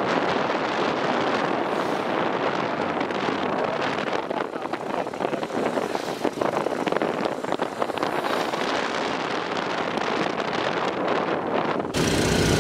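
Wind rushing over the microphone of a camera carried on a moving scooter, a dense steady rush of air and road noise. About twelve seconds in it cuts abruptly to a steadier sound with a low engine hum.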